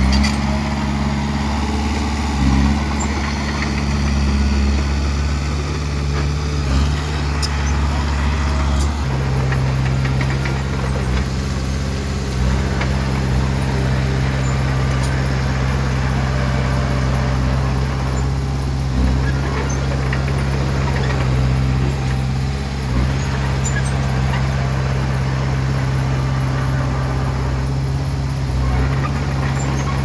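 Bulldozer's diesel engine running steadily while pushing fill, its note dropping slightly about nine seconds in.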